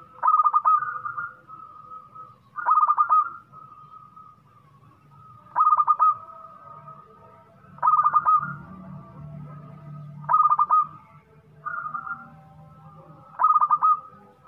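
Zebra dove cooing repeatedly: a loud phrase of quick staccato coos about every two seconds, seven times, with fainter cooing between them.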